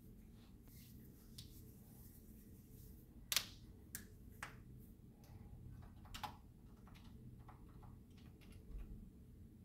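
Quiet room hum with a few scattered sharp clicks. The loudest comes about three and a half seconds in, and smaller ones follow over the next few seconds.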